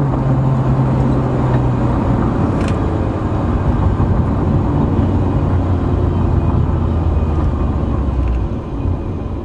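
BMW 318ti Compact's four-cylinder engine running at a steady pitch under way, heard from inside the cabin with road and tyre noise. Near the end the engine note fades away and the sound gets a little quieter.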